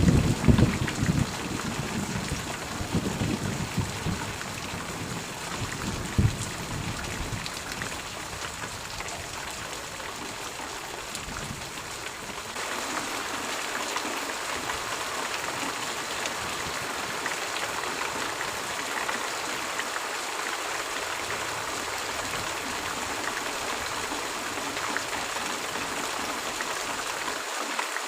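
Steady rain, an even hiss of drops, with a low roll of thunder dying away in the first couple of seconds and a few fainter rumbles after it. About halfway through the rain grows a little louder.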